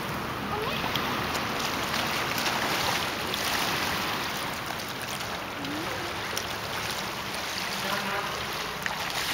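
Small waves washing in the shallows at a beach, a steady hiss that swells and eases every few seconds.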